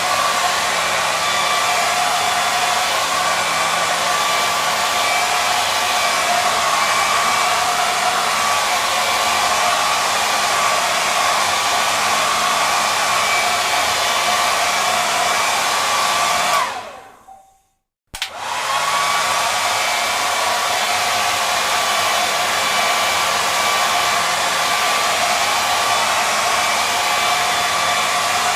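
Hair dryer blowing with a steady whirring hiss and a faint whine in it. Past the middle it dies away to silence for about a second, a click follows, and it quickly comes back up to full blow.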